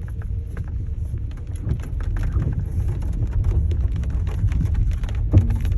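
Raindrops pattering on the roof of a moving car, many scattered ticks over the steady low rumble of the car driving on a wet dirt trail. A single thump about five seconds in.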